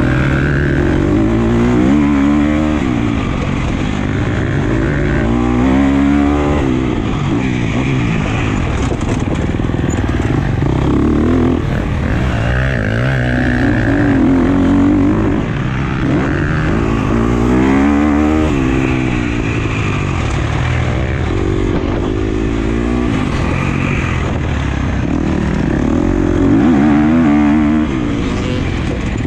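2017 Husqvarna FC250 motocross bike's 250 cc four-stroke single-cylinder engine being ridden hard around the track, its pitch rising and falling over and over as the throttle is opened and closed.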